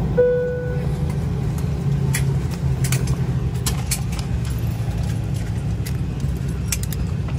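A single airliner cabin chime rings just after the start and fades within about half a second, the chime heard when the seatbelt sign goes off at the gate. Underneath runs the steady low hum of the parked Embraer E190's cabin, with scattered short metallic clicks and rattles later on.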